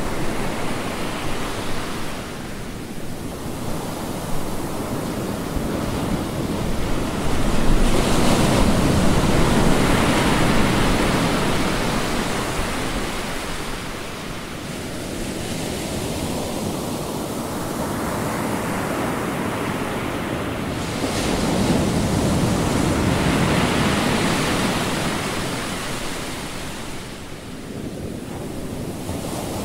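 Ocean waves rushing and washing in, a steady roar of surf that swells and ebbs slowly, rising twice to a louder crest.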